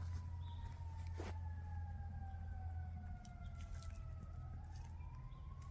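A faint siren wailing, its pitch sliding slowly down for several seconds and then starting to rise again near the end.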